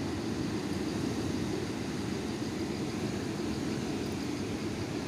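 Steady, unbroken rush of a fast-flowing river.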